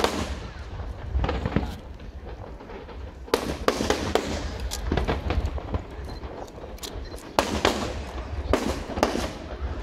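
Aerial fireworks going off in a display: repeated sharp bangs, several in quick clusters, each trailing off in a rolling echo, over a steady low rumble.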